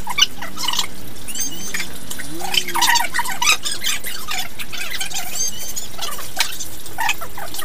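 Spoon clinking against a glass bowl and slurping of boiled noodle soup while eating, heard as scattered short clicks.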